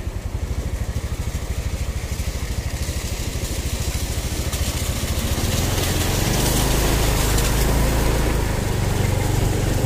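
Motorcycle engine running at low speed with an even pulse, growing louder about five and a half seconds in as it picks up speed, with a hiss rising alongside it.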